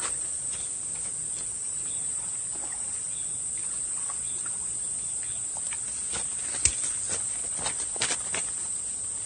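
Steady high-pitched drone of insects, with a scattering of short sharp clicks; the loudest click comes about two-thirds of the way in.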